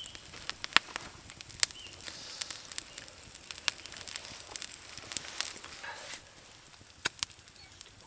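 Wood campfire crackling with frequent irregular sharp pops, under the hiss of eggs and bacon frying in a pan on a grill over the flames; the hiss fades about six seconds in while the pops go on.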